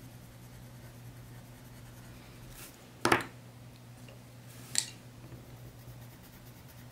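Wooden coloured pencils being put down and picked up on a hard surface: a sharp click about three seconds in, the loudest, and a lighter click near five seconds.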